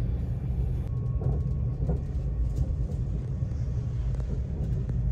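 Passenger train running, a steady low rumble heard from inside the carriage.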